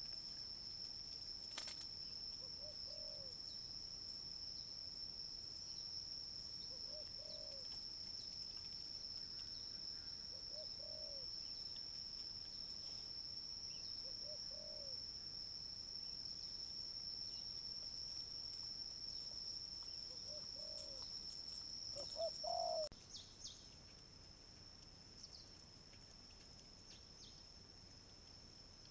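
A dove cooing, a short note repeated about every four seconds, over a steady high-pitched whine. The coos stop about 23 seconds in, where the sound turns quieter.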